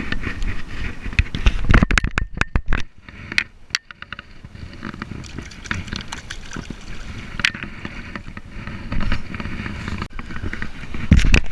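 Wind buffeting the microphone in uneven low rumbles, with a quick run of knocks and rattles about two seconds in and a louder gust near the end.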